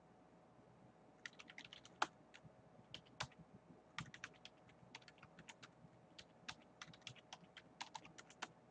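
Typing on a computer keyboard: several runs of quick, soft keystrokes with short pauses between, starting about a second in, a few single keys struck harder.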